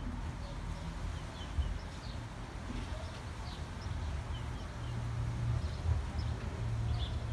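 Small birds chirping, short high chirps about once a second, some in quick pairs, over a steady low rumble.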